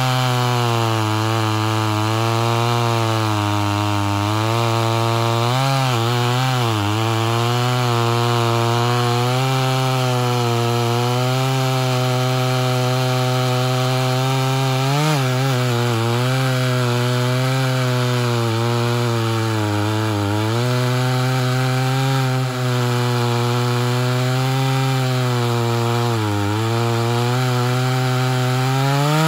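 Ported Homelite Super XL Auto two-stroke chainsaw cutting through a large log round. The engine runs continuously, its pitch sagging briefly several times as the chain bites under load.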